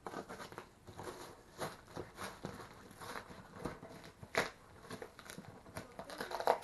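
Cardboard shipping box being torn open by hand: packing tape and cardboard ripping and paper packing crinkling, in irregular crackles and rustles, the loudest rip about two-thirds of the way through.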